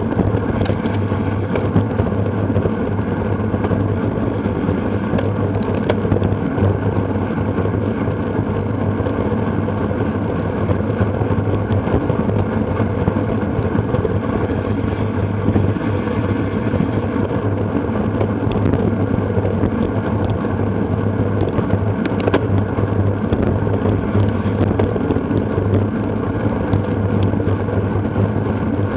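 Steady wind rush and road noise on a bike-mounted action camera's microphone while cycling. It is unbroken and even, with a heavy low rumble.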